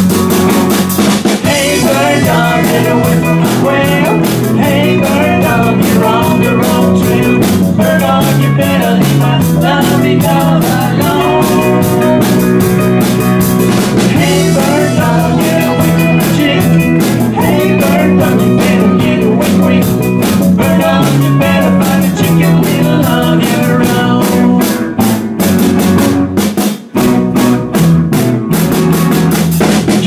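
Live band playing: electric guitars, bass and a drum kit, with a singer's voice over them. The band stops for a moment near the end, then comes straight back in.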